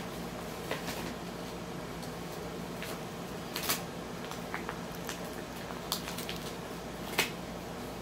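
Brown paper bag crinkling and tearing in short, irregular crackles as a corgi puppy chews and pulls at it, with a few sharper crackles about three and a half and seven seconds in.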